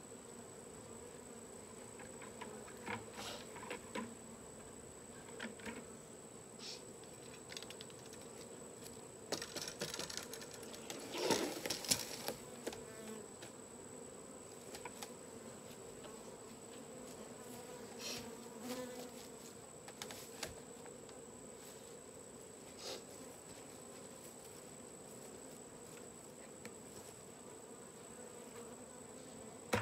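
Honeybee swarm buzzing steadily, with scattered rustles and knocks that are loudest about ten to thirteen seconds in.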